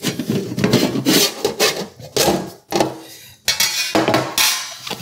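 Metal Pullman loaf pans and lids being handled on the countertop: a series of clanks, knocks and scrapes as they are picked up, slid and set down.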